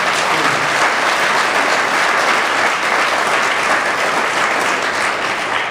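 Audience applauding: dense, steady clapping from a roomful of people that dies away at the end.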